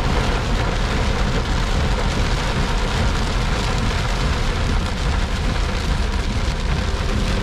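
Heavy rain falling on a car's windshield and roof, heard from inside the car, as a steady hiss with a low rumble underneath.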